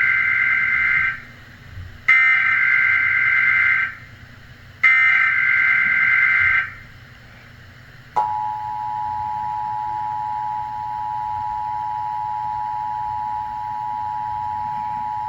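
Emergency Alert System broadcast signal: three harsh, buzzy data bursts of about two seconds each (the digital SAME header that starts an alert), then about eight seconds in, the steady two-tone EAS attention signal begins and holds. This marks the start of the coordinated monthly test.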